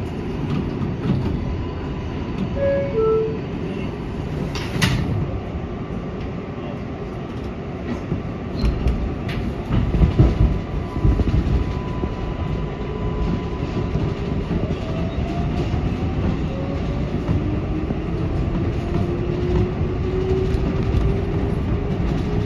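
R188 subway train running on elevated track, heard from the front cab: steady rumble and wheels clattering over the rails. There are two short beeps about three seconds in, and in the second half a whine that rises steadily in pitch.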